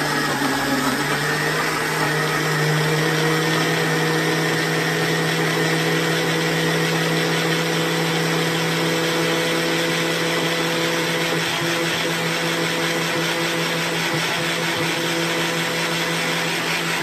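Countertop blender motor running steadily at one speed, pureeing tomatoes, ginger and garlic into a smooth paste.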